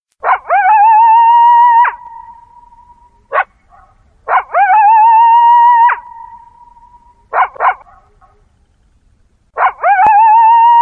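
Coyote howling: a short yip, then a long howl that rises and wavers on one held pitch before dropping away at the end, followed by one or two quick yips. The same call comes three times, about every four to five seconds.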